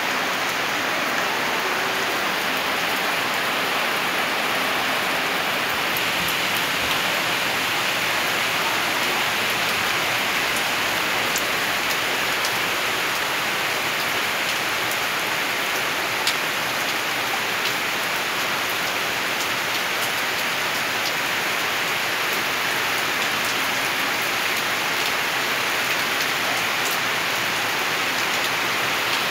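Heavy rain falling steadily, with a few sharp taps of drops striking close by.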